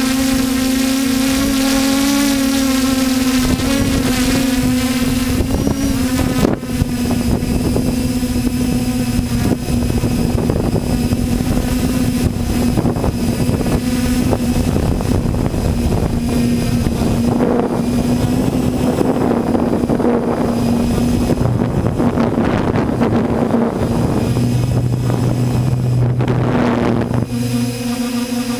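Multirotor drone's electric motors and propellers humming steadily, recorded on board, with wind rushing over the microphone as it flies forward from about six seconds in.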